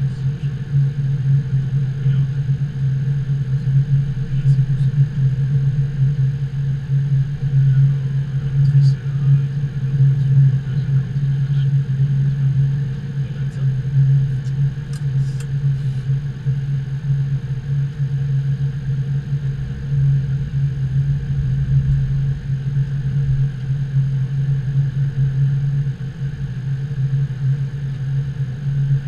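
Steady flight-deck noise of a Boeing 777-200 taxiing: a loud, even low hum with a fainter steady high whine. A few light clicks come between about a third and halfway through.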